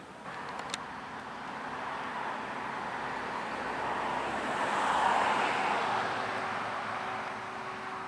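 John Deere combine harvester with a stripper header working through standing grass seed. Its engine and threshing run as a steady, even din that swells to its loudest about five seconds in, then eases off.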